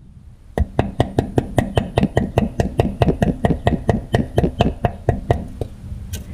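Hammer blows on a block of wood, driving the harmonic balancer onto the crankshaft of a Ford 302 V8: a quick, steady run of about two dozen knocks, four or five a second, which stops near the end. The part is barely moving under the blows.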